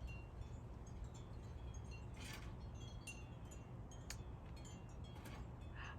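Faint, scattered high tinkling chime tones over a low steady hum.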